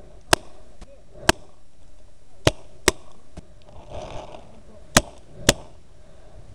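Paintball marker firing six sharp pops at uneven intervals, the last four in two quick pairs.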